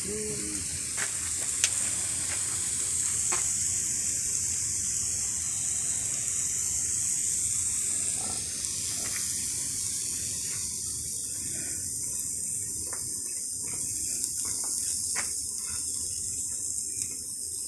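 Meat sizzling on an asado grill over charcoal embers: a steady high hiss with scattered small pops and crackles.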